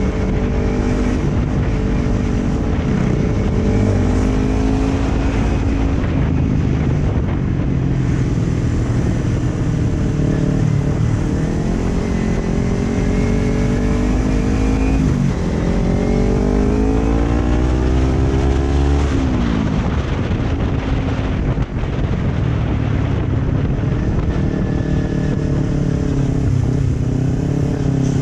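Kawasaki Ninja 250 FI's parallel-twin engine under way, heard from the rider's seat, climbing in pitch several times as it accelerates. The longest climb ends in a sharp fall about two-thirds through as the revs drop.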